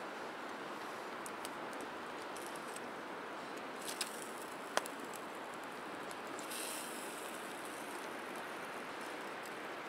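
Small open wood campfire crackling, with a few sharp pops, the loudest about five seconds in, over a steady hiss.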